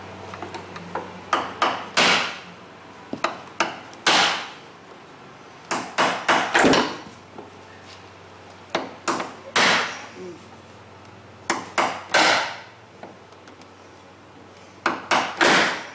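Hammer blows on a pry bar set against a minivan sliding door's center hinge pin, driving out the serrated pin: sharp strikes in quick groups of two to four with pauses between. The pin is stubborn and still not budging.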